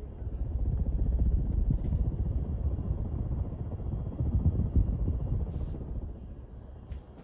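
Kviflon ceiling fan running, heard as an uneven low rumble that eases off near the end.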